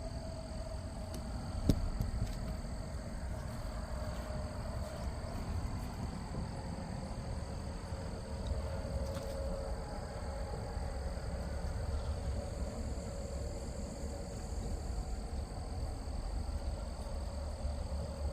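Steady outdoor background of insects trilling over a low rumble, with one sharp click about two seconds in.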